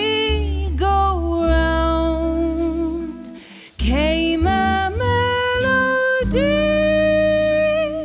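Female vocalist singing a slow jazz ballad in long held notes, accompanied by guitars and double bass. The music drops away briefly about three and a half seconds in, then comes back.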